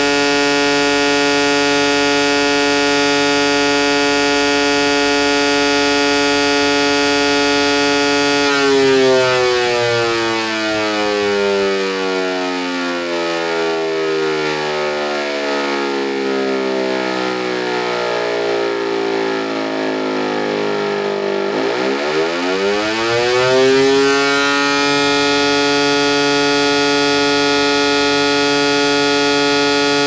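S145 low-tone electric motor siren sounding the fire-alarm signal. It holds a steady wail at full speed, and about eight seconds in the power cuts and the pitch sinks slowly as the rotor runs down. After about thirteen seconds it spins back up quickly to full pitch and holds it again: the off-pause between tones of the fire-alarm signal.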